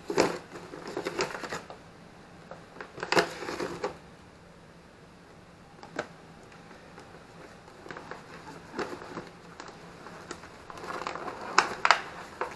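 Packaging and small parts being handled. There are bursts of rustling near the start, around three seconds in and near the end, with single sharp clicks in between.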